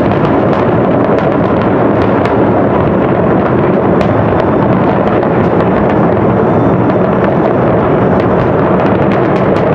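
Aerial fireworks in a dense, continuous barrage: shell bursts come so fast that they merge into a steady loud rumble, with many sharp crackles over it.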